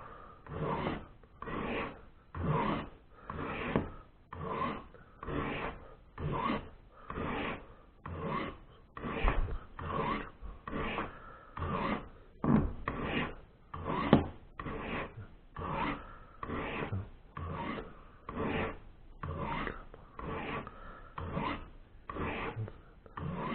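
Knife blade stroked again and again down the coarser ceramic rods of a Lansky Turn-Box crock stick sharpener, a light rasping scrape at each pass in a steady rhythm of about one and a half strokes a second. The blade is being resharpened after its edge was dulled.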